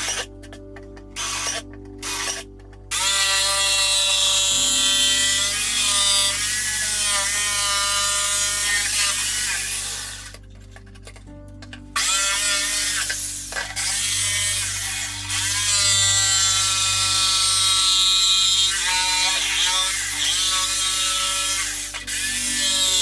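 Drill running in three short bursts into a wooden board, then a jigsaw cutting through the board in two long runs. Its motor whine rises and falls over the rasp of the blade, with a short pause near the middle.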